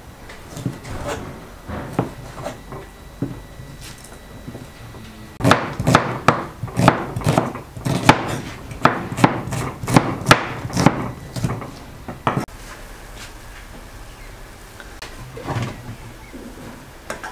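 Kitchen knife chopping green pepper and onion on a wooden cutting board: scattered cuts at first, then a quick run of knocks on the board for about six seconds from roughly five seconds in, after which the chopping stops.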